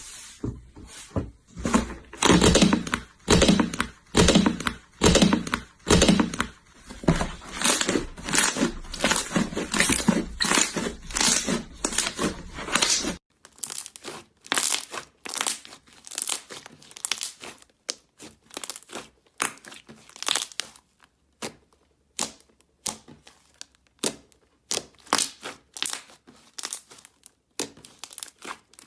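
Slime being squeezed and stretched by hand, crackling and popping in rhythmic squeezes about twice a second. About halfway through it cuts to a quieter stretch of sharper, thinner clicks.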